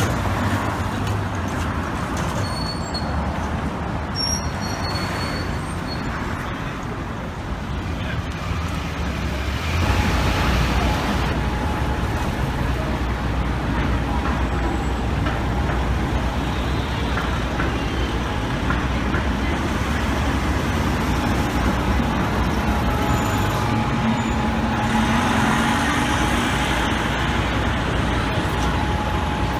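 Street traffic: road vehicle engines running and passing steadily, with a heavier rumble starting about ten seconds in and a steady whine over it.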